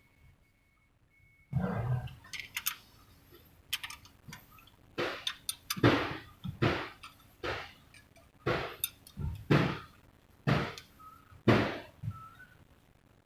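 A series of about a dozen irregular knocks and clanks, some ringing briefly, beginning about a second and a half in.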